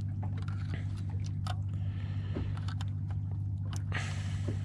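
A steady low motor hum, with light metallic clicks and scrapes from a fork stirring oysters in a cut-open aluminium can.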